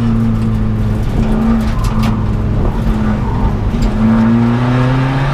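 Seat Ibiza TDI rally car's turbodiesel engine working hard on a stage, heard from inside the cockpit. Its note wavers through the first half, then climbs steadily over the last second and a half as the revs rise.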